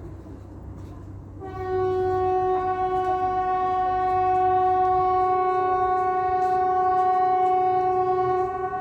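Kockums Supertyfon pneumatic air horn (Hesa Fredrik warning signal) sounding one long steady blast at about 380 Hz, rich in overtones. It starts about a second and a half in and weakens near the end. The installation is one the recordist suspects has a bad valve or relay.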